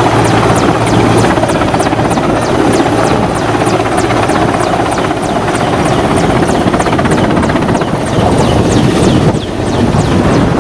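Indian Air Force Mi-17 helicopter flying low overhead: loud, steady rotor and turbine noise that dips briefly about nine seconds in.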